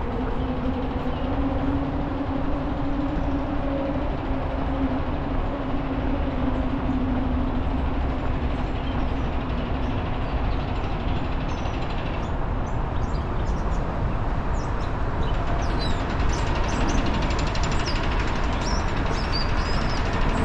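Steady rumble of passing traffic, with a low droning hum that dies away about ten seconds in.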